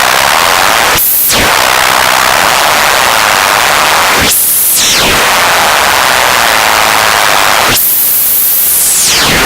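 Loud, steady radio static, a hissing, crackling interference noise. Three times the static sweeps thin and hollow and then fills back in, like a radio being tuned across frequencies: briefly about a second in, again around four and a half seconds, and for longer near the end.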